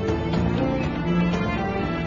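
Instrumental background music with held notes over a light percussive beat.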